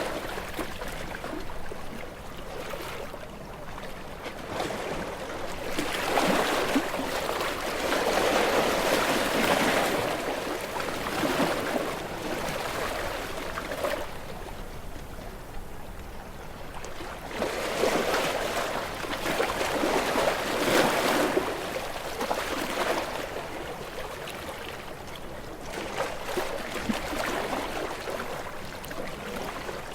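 Small waves washing onto a shore. The wash swells up in surges a few seconds long, about every eight to ten seconds, and falls back to a quieter rush between them.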